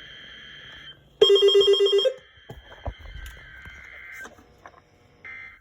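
NOAA Weather Radio SAME header: the screeching two-tone digital data bursts that open an EAS Required Weekly Test, heard from weather radio receivers. About a second in, a short, loud, rapidly pulsing ringing alarm cuts in for about a second. This is typical of a receiver's own alert going off as it is activated by the signal.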